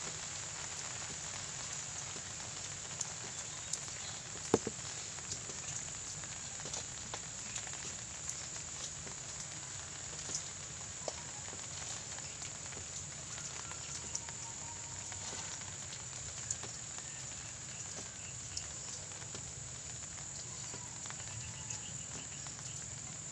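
Light rain pattering steadily, with scattered small taps and clicks, the sharpest about four and a half seconds in, over a steady high-pitched hum.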